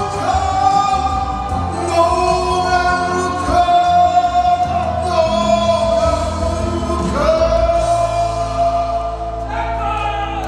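A man sings a Korean song live into a handheld microphone over instrumental accompaniment. Near the end he holds one long note.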